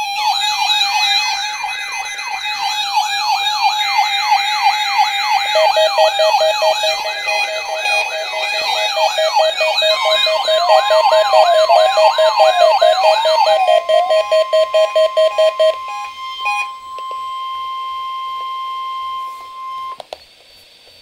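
Several NOAA weather radio receivers sounding their alarms together for the weekly test: fast siren-like wails rising and falling about twice a second, a steady tone, then rapid beeping, all overlapping. About ten seconds in, the broadcast's steady warning alarm tone joins; the wails and beeps drop out, and the tone cuts off suddenly about a second before the end.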